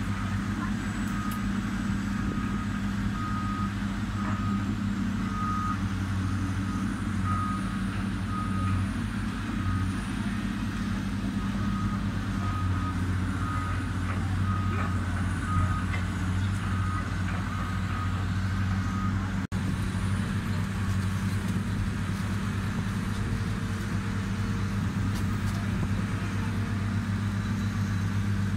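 Heavy demolition machinery running steadily at a low, even hum, with a backup alarm beeping on and off over the first two-thirds or so.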